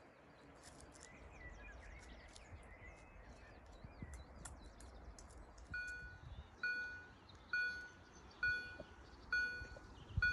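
Birds chirping, then about six seconds in a railway level-crossing warning bell starts, sounding a ringing tone roughly once a second: the crossing's signal that a train is approaching.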